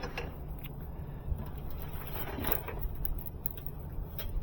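A steady low background hum, with a few faint clicks and taps of small tools being handled.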